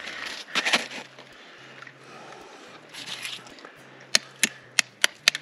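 Hand tool chipping and scraping at ice on frozen ground: a few crunching scrapes, then five sharp knocks near the end, about three a second.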